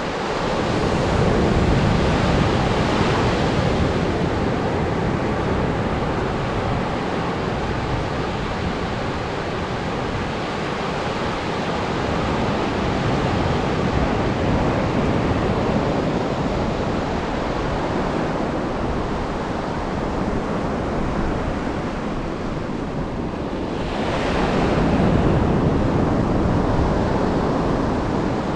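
Atlantic surf breaking on a sandy beach, a steady wash of waves that swells louder twice, a second or so in and again near the end, as waves break.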